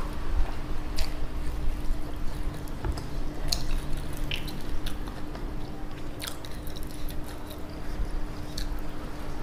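Close-up chewing of sauce-coated fried chicken: wet mouth sounds with scattered short sticky clicks and crackles.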